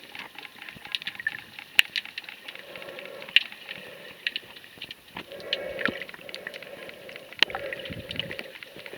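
Sea water heard through a camera held underwater: irregular sharp clicks and crackles throughout, with a muffled low hum that swells and fades twice in the second half.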